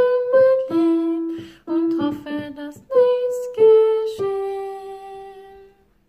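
A soprano voice singing the melody line of a choir part, a run of short notes followed by a long held note that stops shortly before the end.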